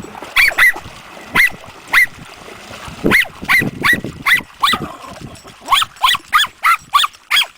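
A small dog yapping in short, high-pitched barks: a few spaced single barks, then quicker runs of barks toward the end.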